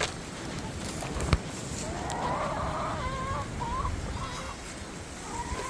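A chicken calling: one drawn-out, wavering call about two seconds in, then a few short notes, over wind rumbling on the microphone.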